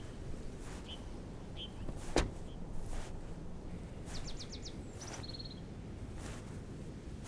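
Small birds chirping in short high calls, with a quick run of rising notes and a brief trill past the middle, over a steady low rumble of wind. A single sharp click sounds about two seconds in.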